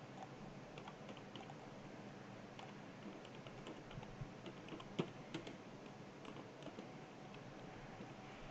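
Faint computer keyboard typing: irregular keystrokes clicking, with one sharper, louder key press about halfway through.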